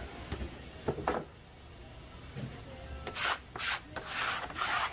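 A couple of light knocks about a second in, then a run of about five short rubbing or scraping strokes from about three seconds in.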